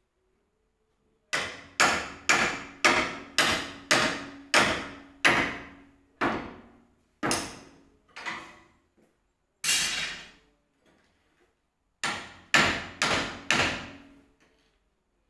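Hammer blows on a window frame being knocked loose, about two a second in quick runs with pauses between, each blow ringing briefly.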